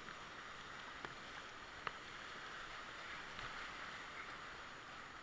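Rushing whitewater of a river rapid heard from a kayak, a steady hiss that swells a little past the middle, with two sharp knocks about one and two seconds in.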